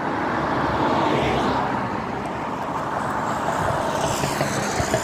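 Road traffic noise, a steady rushing of a motor vehicle on the road.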